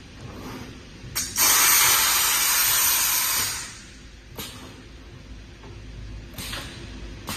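Spot welding machine cycling: a click, then a loud hiss about two seconds long, typical of a pneumatic cylinder venting air, then a few sharp clicks.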